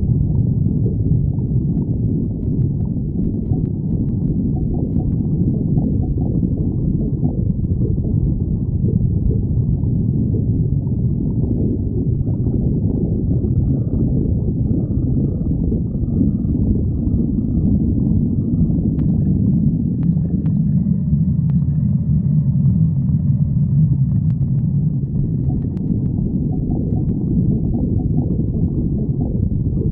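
Human stomach growling: a continuous low rumbling and gurgling that shifts and wavers without a break.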